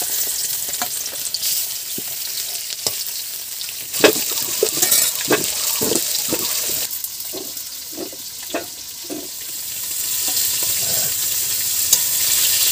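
Turmeric-coated fish pieces sizzling in hot oil in a wok, with a steady frying hiss. A metal spatula scrapes and knocks against the wok and a steel bowl, most busily from about four to seven seconds in.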